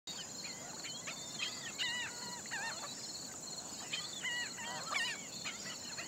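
Birds calling in short, repeated notes that bend up and down in pitch, over a steady high-pitched insect trill.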